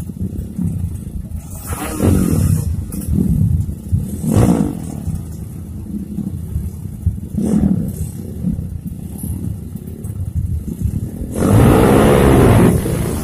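Motorcycle engines revved in separate sharp blips, each rising and then falling in pitch, followed by a louder, sustained rev near the end.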